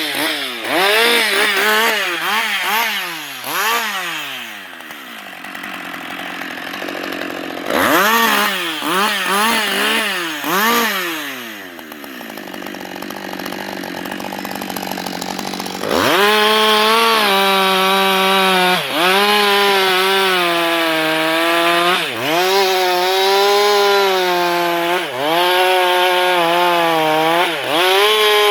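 Husqvarna 560XP two-stroke chainsaw revved up and down in quick bursts, dropping back to idle between, twice. From about halfway it is held at high revs, its pitch dipping briefly every second or two as it is loaded, as when cutting into wood.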